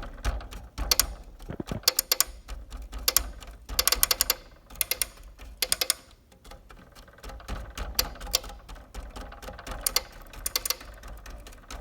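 Relay on a Chamberlain garage door opener's circuit board chattering, rapid bursts of clicks as it picks and drops out again and again, with a short lull partway through. It is the sign of a loose connection, which the owner puts down to a cold solder joint on the relay board.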